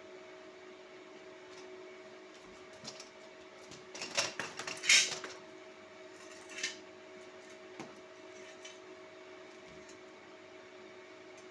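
A few sharp metallic clinks and clatters, bunched about four to five seconds in with two more after, over a steady electrical hum.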